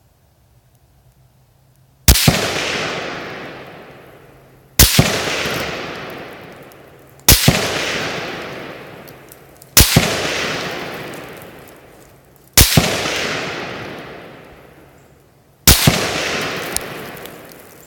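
Smith & Wesson M&P15 AR-15 rifle in 5.56 fired six times in slow semi-automatic, about one shot every two and a half seconds. Each shot is followed a moment later by a second sharp crack, and its echo rolls off over about two seconds.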